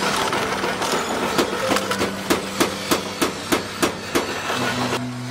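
Hammer strikes in an even rhythm, about three a second, over a steady hum; the strikes stop about four seconds in.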